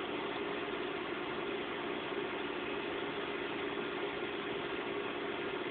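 Steady hum of a running computer's cooling fans and drives, an even drone with no change in pitch or level.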